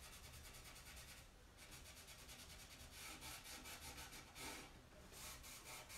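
Damp cloth rubbed quickly back and forth over a glazed, chalk-painted box, softening and blending the glaze. Faint, with brief pauses about a second in and again just before the five-second mark.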